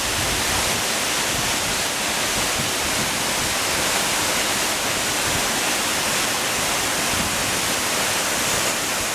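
Steady rushing of falling water, an even hiss-like rush without pauses, fading in at the start and fading out at the end.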